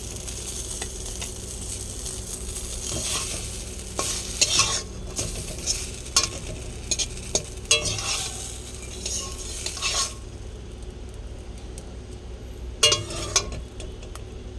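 A bottle-gourd pancake frying and sizzling in a pan, with a spatula scraping and knocking against the pan. The sizzle drops away about ten seconds in, and a couple of sharp clatters follow near the end.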